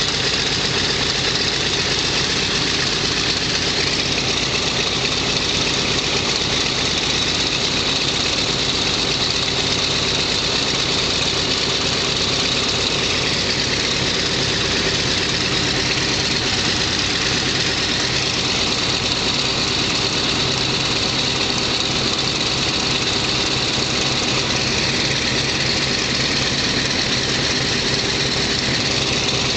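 Vought F4U-1D Corsair's Pratt & Whitney R-2800 eighteen-cylinder radial engine idling steadily, with the propeller turning over at low speed.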